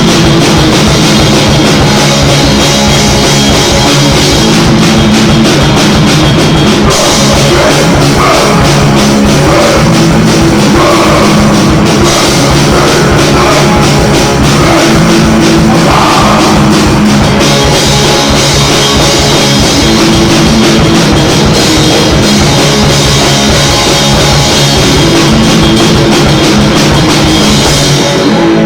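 Rock band rehearsing a loud, heavy rock piece with a full drum kit and guitar. The cymbals and drums drop out just before the end, leaving the guitar.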